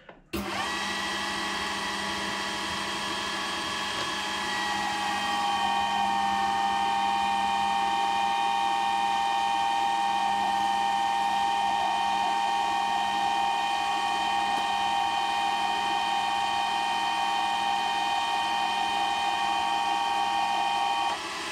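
Metal lathe taking a turning cut on a steel bar with a WNMG carbide insert: a steady machine whine with cutting noise underneath, as blue-hot chips come off the work. It gets a little louder about five seconds in and drops off near the end.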